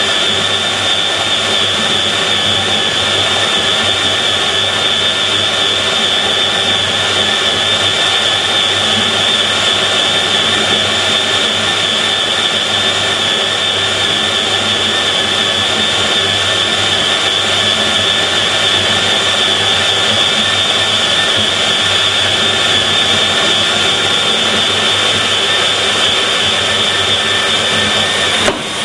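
Fein KBM 50 Auto magnetic core drill boring a 50 mm hole in steel with an annular cutter under its automatic feed: a steady, high-pitched motor whine mixed with cutting noise. The sound dips briefly near the end.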